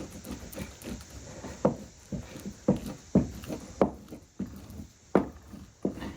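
A series of sharp, irregularly spaced knocks as a blade chops down through the overhanging crotch mahogany veneer, trimming its excess edges while the hide glue is still soft.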